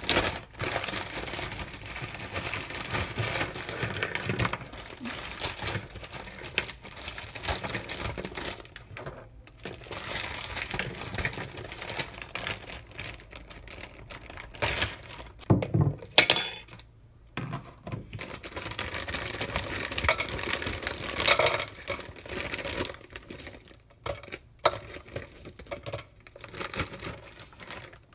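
Plastic bags rustling and crinkling as garlic cloves and chopped onion are taken out of them, with small clinks and knocks of the pieces landing on a plastic cutting board.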